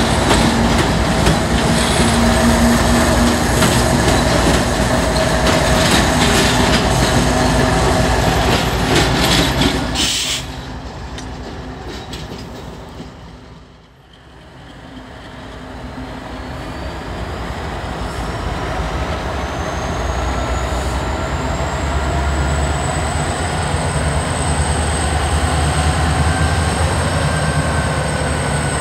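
Diesel freight locomotives in a rail yard. First a BNSF GE C44-9W (Dash 9) locomotive runs past close by with a loud, steady rumble. After a sudden break, Norfolk Southern diesel locomotives approach, their engine sound building steadily, with a high whine rising in pitch.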